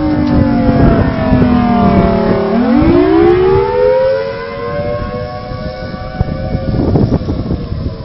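Outdoor tornado warning siren wailing, its pitch falling for about two and a half seconds, then sweeping back up and holding high.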